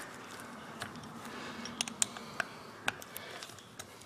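A few sharp metal clicks and taps as a steel Allen key works at and comes out of the stuck bottom plug of an Ingersoll Rand Thunder Gun 1/2-inch air impact wrench. A faint low hum runs under the first couple of seconds.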